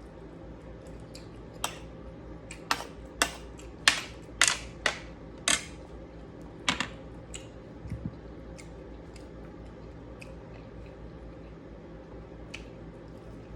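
Eating sounds: a run of about a dozen sharp, crisp crunches and clicks over a few seconds, then a few faint ticks, over a steady low hum.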